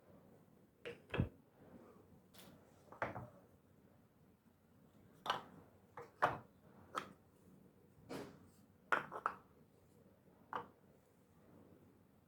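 Light knocks and clacks of kitchen items being handled and set down, about a dozen irregular taps with short pauses between them.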